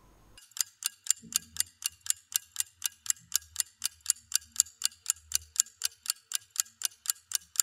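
Clock-like ticking sound effect, about four sharp, evenly spaced ticks a second, starting about half a second in.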